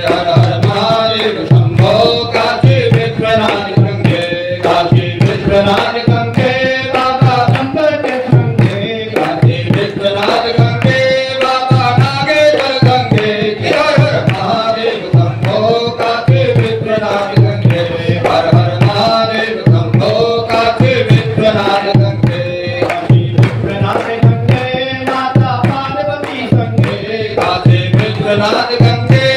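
Devotional music: a tabla-type hand drum keeps a steady beat under a wavering melody line, with no pause.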